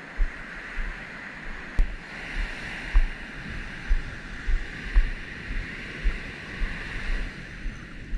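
Ocean surf breaking and washing up a sandy beach in a steady hiss, with wind buffeting the microphone in irregular low thuds.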